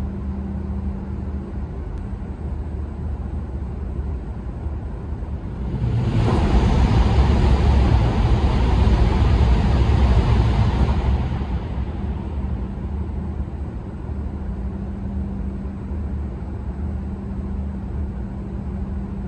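A Shinkansen bullet train passing at full speed, heard from inside a stopped Shinkansen car over its low cabin hum. About six seconds in, a sudden loud rush of air and rolling noise lasts about five seconds and then fades away.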